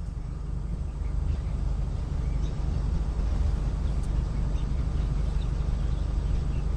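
Outdoor background noise through a doorbell camera's microphone: a steady low rumble, with faint short bird chirps scattered through.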